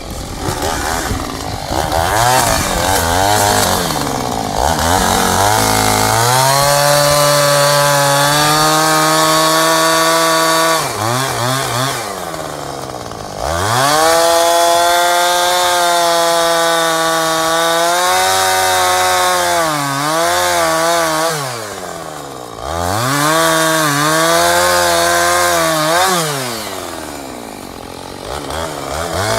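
Two-stroke chainsaw held at full throttle cutting wood, its engine note dropping back toward idle about a third of the way in and twice near the end, each time revving back up into the cut.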